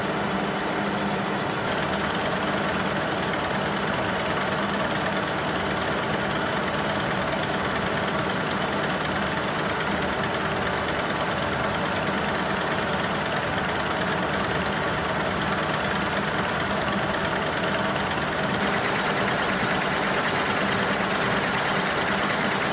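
Kearney & Trecker horizontal milling machine running with its spindle at 550 RPM and the table on power feed, a half-inch ball end mill cutting a finger groove into a cast iron straight edge. Steady machine running with gear whine.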